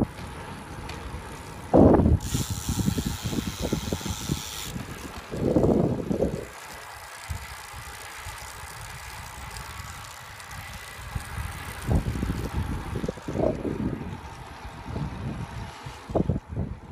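Wind buffeting a handheld phone's microphone in irregular gusts while riding a road bicycle, with a steady high hiss for a couple of seconds about two seconds in. A few sharp knocks near the end are the phone being handled.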